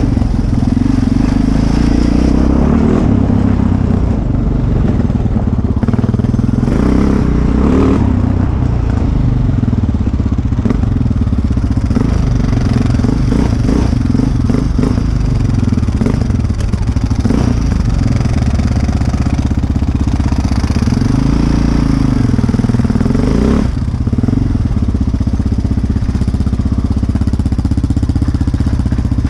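Close-up sport quad engine running while it is ridden over a rough dirt trail. The engine revs up and eases off again and again, with some rattle from the machine.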